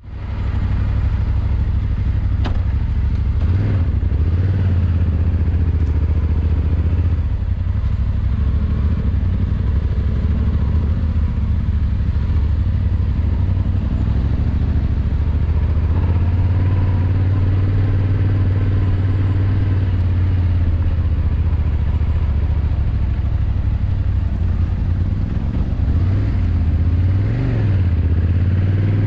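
Yamaha Ténéré 700's parallel-twin engine running while ridden, a steady low drone whose pitch dips and climbs again a few times.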